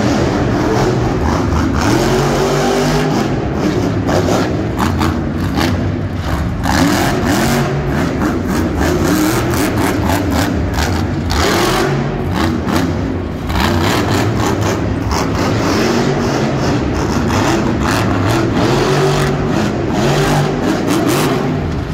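Monster truck's supercharged V8 engine revving hard, its pitch climbing and falling again and again as the truck accelerates and lifts off across the dirt.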